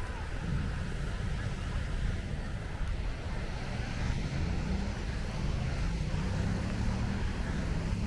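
Steady low rumble of beachfront ambience, with surf and road traffic blended together.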